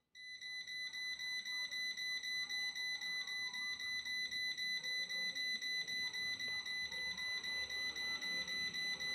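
Lock&Lock digital air fryer's touch control panel beeping rapidly, about four short high beeps a second, as the timer button is held down and the set cooking time climbs.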